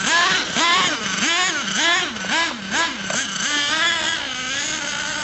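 Small nitro engine of an RC monster truck revving up and down in quick repeated bursts, about two a second, then settling to a steadier, slightly wavering note near the end.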